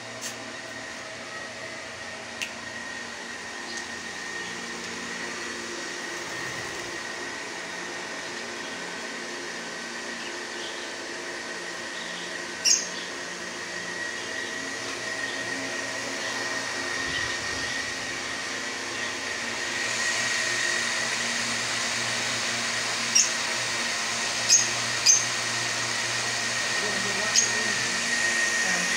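A small motor running with a steady hum and a constant high whine, getting a little louder about two-thirds of the way through, with a few short sharp clicks, most of them near the end.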